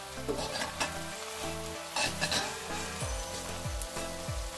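A spoon stirring glossy black soybeans in a sticky soy-sauce glaze in a pot: a wet, crackly stirring sound with a few sharp scraping clicks. Soft background music plays underneath.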